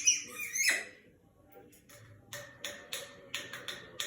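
An African grey parrot makes two or three short, harsh, noisy sounds in the first second. From about two seconds in comes a quick run of sharp taps and clicks, about three or four a second.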